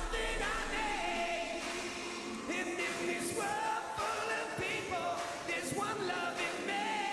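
Live pop ballad: a male lead singer drawing out sung lines and ad-libs over a backing choir, with the bass and drums dropped out.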